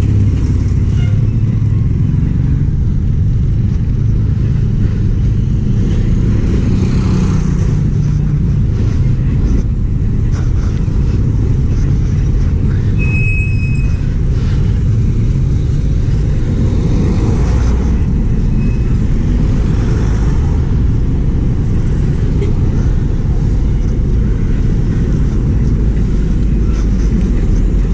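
Steady low rumble of road traffic passing close by, with a brief high-pitched beep about halfway through.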